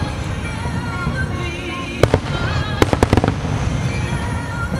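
Aerial fireworks shells bursting: a cluster of sharp bangs about two seconds in and another around three seconds in, with the display's music playing underneath.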